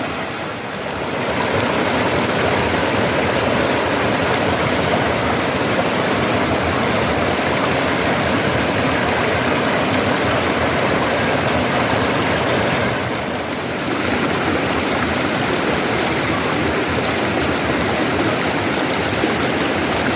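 Valley stream rushing steadily, a continuous loud water noise that softens briefly about 13 seconds in.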